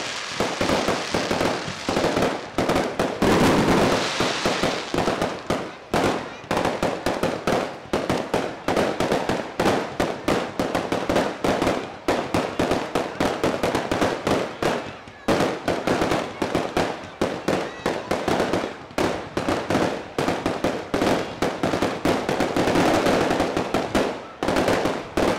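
Aerial fireworks going off in a rapid barrage: many bangs and crackles a second from golden bursting shells, with only brief lulls.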